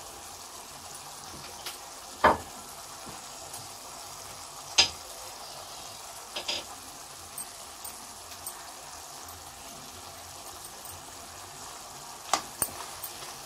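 Zucchini-tomato curry sizzling steadily in an open pan, with a few sharp clicks or taps scattered through, the loudest about two and five seconds in.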